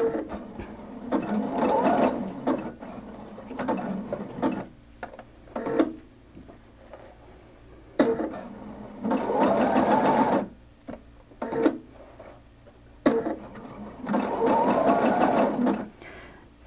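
Sewing machine stitching bar tacks, a very close, full-width zigzag that comes out like a satin stitch. It runs in several short bursts of one to three seconds with pauses between them, and a sharp click comes before some of the runs.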